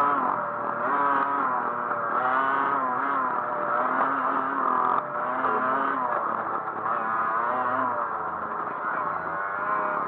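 Dirt bike engine running under changing throttle, its pitch rising and falling about once a second.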